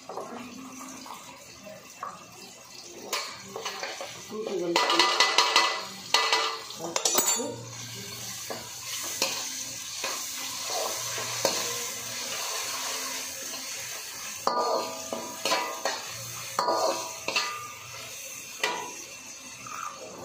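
A metal spoon scraping and clinking in a cooking pan as food is stirred, with irregular knocks throughout and a busier stretch of scraping about five seconds in.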